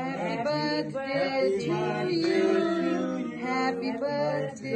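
A group of people singing a birthday song together without accompaniment, in held notes that change about every half second.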